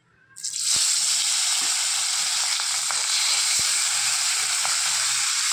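Pieces of fish frying in hot oil in a kadai: a steady sizzle with occasional pops. It starts suddenly a moment in.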